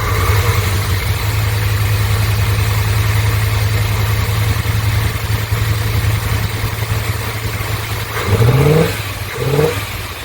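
Carbureted 350 cubic inch small-block V8 in a 1988 Chevy K2500 idling, then blipped twice in quick rising revs near the end. It runs pretty rough with a miss, which the owner puts down to fuel or spark and suspects is contaminants clogging the carburetor jets.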